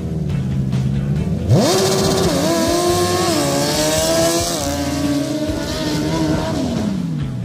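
Sand drag quad's engine idling at the start line, then revving hard as it launches about a second and a half in. The pitch stays high with a few sudden drops at the gear shifts, then falls away near the end as the rider backs off.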